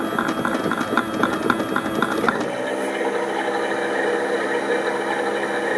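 Battery-powered Theo Klein Miele Novotronic toy washing machine running a wash cycle: regular ticking at about four clicks a second, then about two seconds in it switches to a steady electric motor whir.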